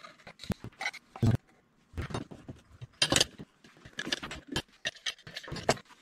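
Small wooden parts being handled and fitted at a workbench: irregular light taps, knocks and short scrapes of wood on wood, with one firmer knock a little over a second in.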